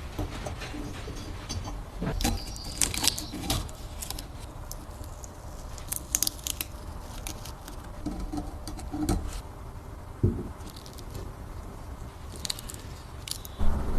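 Scattered light clicks and clinks of small hard objects being handled, coming in clusters about two, six and twelve seconds in.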